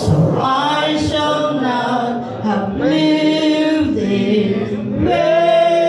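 A group of people singing together in unison, holding long notes that change about once a second.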